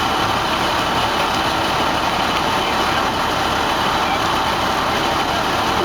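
The engine of a hydraulic pump used for storm drain cleaning, running steadily.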